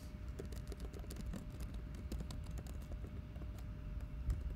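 Typing on a computer keyboard: a quick, irregular run of quiet keystrokes as a name is typed in.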